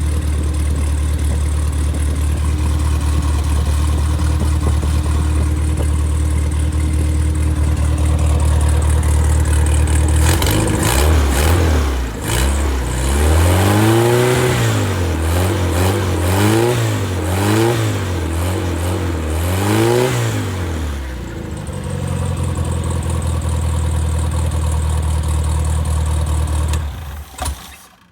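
Freshly rebuilt engine on test, idling steadily, then revved up and back down several times before settling to idle again. It shuts off near the end.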